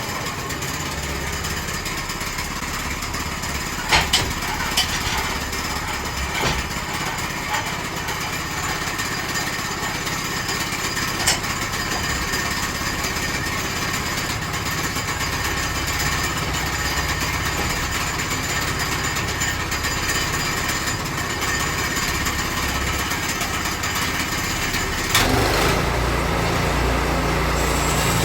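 Small gas engine of a Woodland Mills HM122 portable bandsaw mill running steadily as the band blade saws through a log, with a few sharp knocks about four to six seconds in and again near eleven seconds. About three seconds before the end, the engine note changes and deepens.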